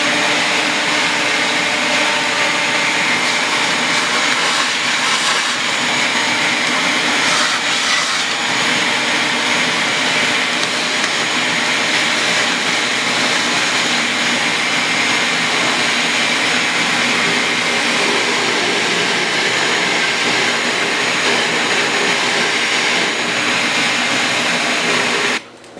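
Loud, steady whooshing run of an electric motor moving air, with a faint steady whine in it, switching on abruptly and cutting off abruptly near the end.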